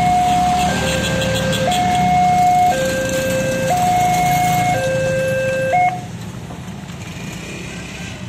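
Railway level-crossing warning alarm from the loudspeaker on the crossing signal: a two-tone electronic 'teng-tong', alternating high and low about once a second, warning of an approaching train as the boom barrier comes down. It stops about six seconds in. Motorbike and car engines run low underneath.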